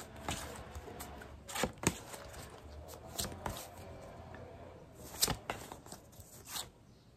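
A stack of paper postcards being shuffled and handled: a series of short rustles and flicks of stiff card, with a small cluster a little past five seconds in.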